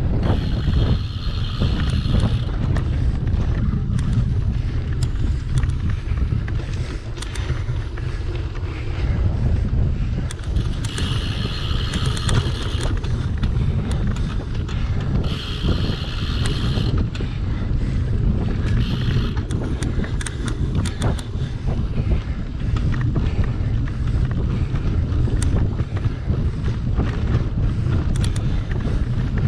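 Wind buffeting a GoPro action camera's microphone on a cyclocross bike being raced over rough ground, with a constant low rumble and frequent knocks and rattles. A few higher-pitched sounds last a second or two each, one near the start and others past the middle.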